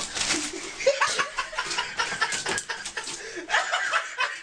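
A person chuckling and snickering, mixed with many short clicks and knocks.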